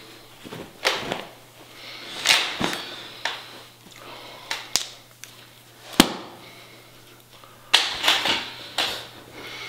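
A towel rustling as it is smoothed out, and small metal tools being handled and set down on it with sharp clicks and knocks, the sharpest about six seconds in, over a steady low hum.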